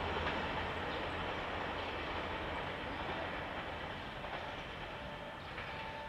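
KiHa 261 series diesel express train pulling away into the distance, its engine and wheel rumble slowly fading.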